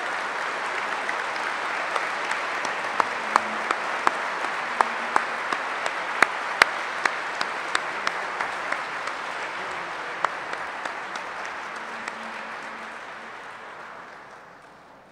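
Audience applauding, a steady dense clapping with a number of single sharp claps standing out in the middle, dying away over the last few seconds.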